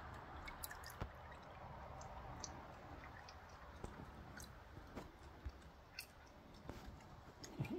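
Raccoon dabbling for grapes in a shallow plastic tub of water and chewing: faint, scattered small clicks, drips and wet squishy sounds.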